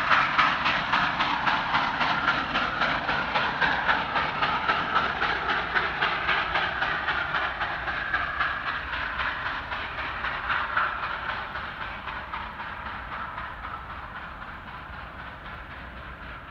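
Soviet L-class 2-10-0 steam locomotive and its passenger train drawing away, with a fast, even beat over a noisy rumble. The sound fades steadily as the train recedes.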